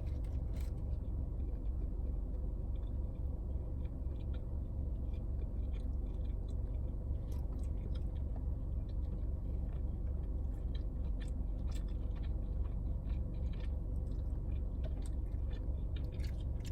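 A person chewing a grilled chicken sandwich, with small clicks and ticks of mouth sounds, over a steady low hum.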